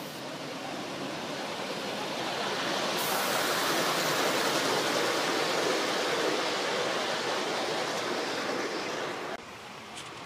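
Gauge one live-steam model train, an NSWGR C32 class locomotive with its coaches, running past close by: a rushing noise from the locomotive and from the wheels rolling on the track. It swells as the train nears, then cuts off suddenly about nine seconds in.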